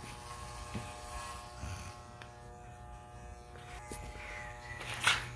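Electric hair clippers running with a steady buzz as they cut a man's hair, with a brief louder scraping noise about five seconds in.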